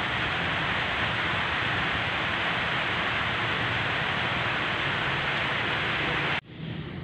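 A steady, even hiss that stops abruptly near the end, giving way to a quieter background.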